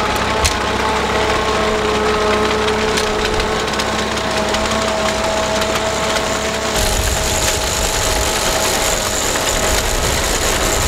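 Fordson N tractor engine running steadily as it pulls a reaper-binder cutting oats, with the binder's reel, knife and canvases clattering along. About two-thirds through, a rougher, louder rumble and hiss come in.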